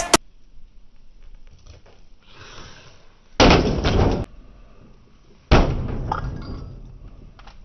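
Two loud crashing impacts about two seconds apart as a microwave oven is smashed, with glass and metal breaking; the second crash fades out over a couple of seconds.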